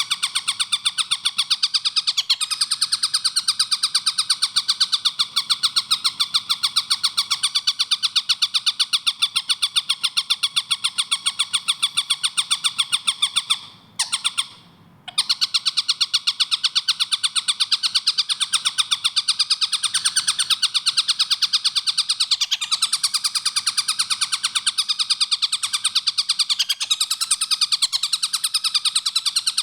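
Javan kingfisher (tengkek buto) calling in a fast, tight run of harsh repeated notes. The run breaks off for about a second near the middle, then starts again just as fast.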